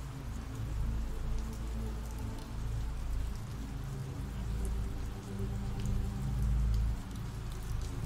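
Ambient rain sound effect: a steady hiss of rain with scattered drops ticking and a deep, steady rumble underneath.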